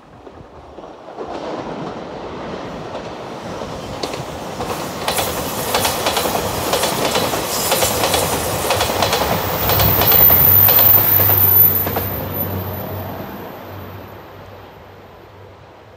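JR Shikoku 2700 series diesel limited-express train passing at speed. Its wheels clatter over the rail joints in a steady rhythm, then a steady low engine drone and a high thin whine carry on as it pulls away and fades.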